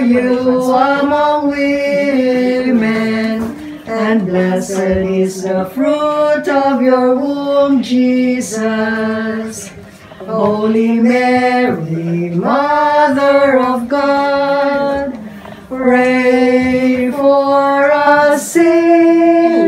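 A small group of people singing a hymn together in phrases of long held notes, with short pauses between the lines.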